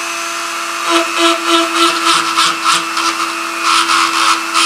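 Dremel rotary tool running with a steady whine, its diamond bit grinding filler on a lead toy figure's leg. From about a second in, it rasps against the work in quick repeated strokes, about three or four a second.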